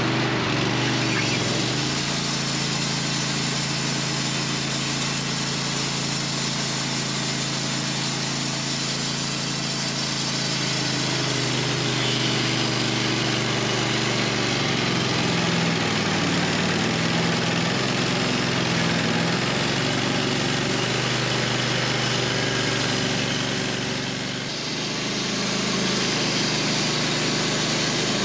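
Wood-Mizer LT15 portable band sawmill running steadily while sawing through a hard maple log, the engine's pitch wavering under load in the middle stretch. The level dips briefly about 24 seconds in, then picks up again.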